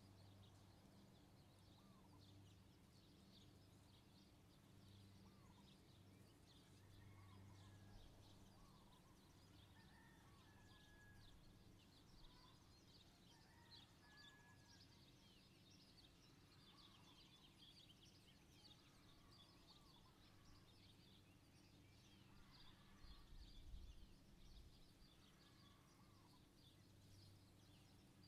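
Faint bird calls: many short high chirps throughout, with a few clear whistled notes, over a low steady hum. A brief low bump comes shortly before the end.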